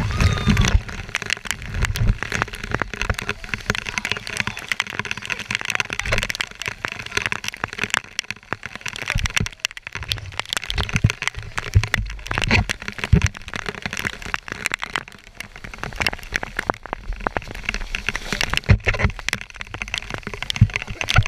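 Heavy rain and splashing water hitting the camera in a thunderstorm: a dense, continuous crackle of drops, with voices now and then.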